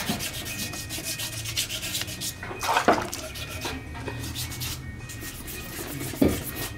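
Quick, repeated rubbing and scraping strokes against a metal sewing machine body casting worked by hand, with a louder knock about three seconds in and another near the end.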